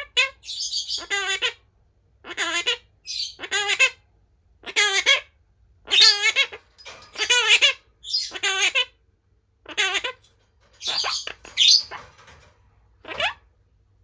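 Monk parakeet (Quaker parrot) vocalizing: a run of about a dozen short calls and chattered phrases roughly a second apart, many with a wavering, speech-like pitch.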